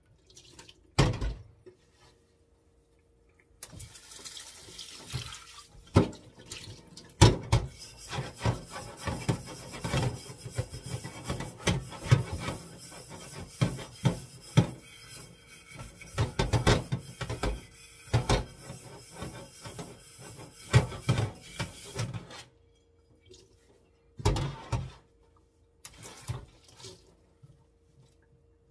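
Tap water running into a stainless steel kitchen sink while pots are rinsed, with frequent sharp knocks and clatters of metal pots against the sink. The water starts a few seconds in and shuts off about three-quarters of the way through, leaving a few more knocks.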